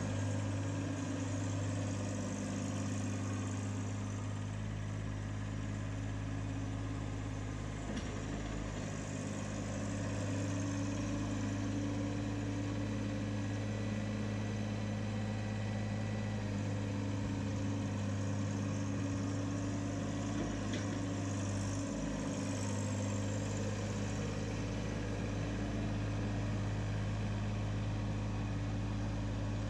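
Farmtrac 26H compact tractor's diesel engine running steadily at an even speed while the tractor drives slowly, pushing snow with a front-loader snow box.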